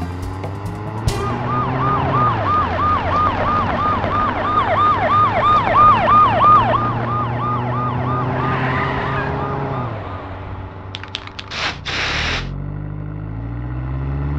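Police siren in a fast yelp, about three rising-falling cycles a second, growing louder and then fading away over a steady car engine hum. Near the end comes a short burst of rushing noise.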